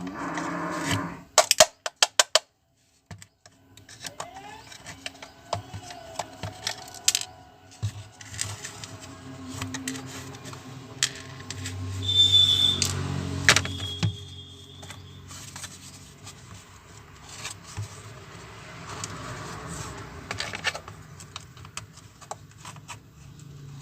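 Repeated clicks, taps and rattling of small tools and plastic parts being handled while a Bluetooth speaker is taken apart for repair, with a brief high tone about halfway through.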